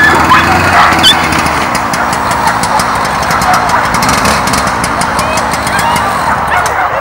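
Motor of a lure-coursing machine running, reeling in the line that drags the lure across the grass; it sweeps in pitch at the start, then runs on steadily.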